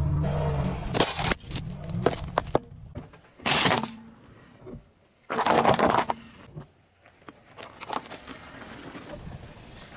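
Things being crushed under a car tyre on asphalt, among them a plastic game controller: a quick run of sharp cracks and snaps, then two short bursts of crunching about three and a half and five and a half seconds in (the second the loudest), then a few scattered snaps.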